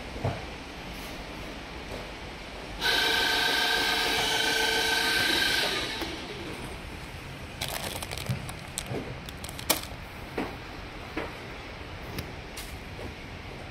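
A horn of several held tones sounds for about three seconds, starting suddenly about three seconds in and then dropping away. After it come scattered small clicks and rustles of handling.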